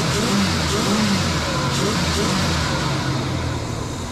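1971 Oldsmobile Cutlass Supreme V8 with a freshly rebuilt Rochester Quadrajet four-barrel, blipped by hand at the throttle a few times in the first couple of seconds. It then settles back to idle without dieseling or stumbling, a sign the carburetor's fuel problem is sorted, though the cold engine idles a little rough.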